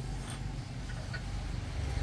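An engine running with a steady low rumble and a few faint ticks and taps.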